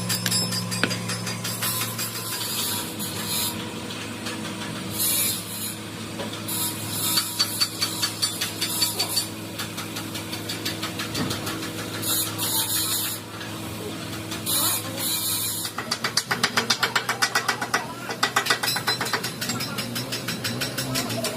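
Workshop machinery running with a steady hum, with several short bursts of hissing air. Near the end comes a fast run of mechanical clicking or rattling.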